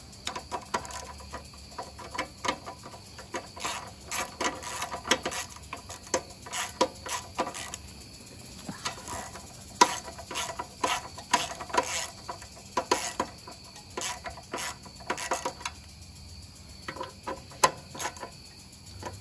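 Irregular clicks and light metallic knocks of hand tools and metal parts being handled during reassembly of a small Briggs & Stratton engine, some strikes ringing briefly, in clusters with short pauses.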